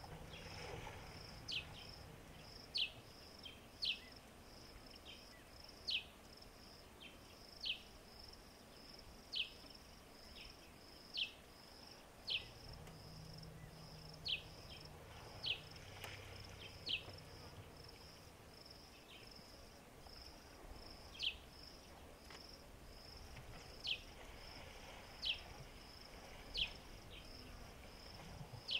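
Insects trilling in a steady, pulsing chirr, crossed every second or two by a bird's short whistle that slides down in pitch, the loudest sound.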